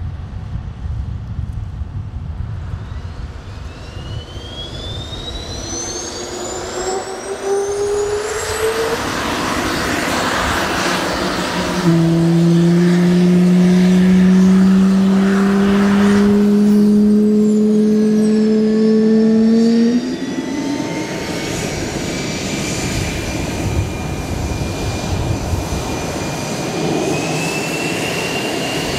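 Jet fighter's engine whining, its tones rising in pitch; a loud low hum holds for about eight seconds partway through, then cuts off abruptly.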